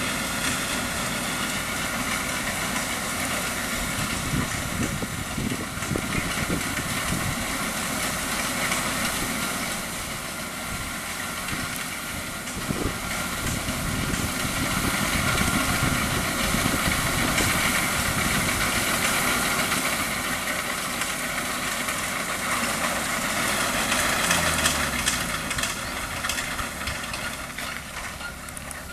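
Combine harvester's engine running steadily with a mechanical whine over a low rumble; about three-quarters of the way through its pitch falls as it revs down, and the sound fades near the end.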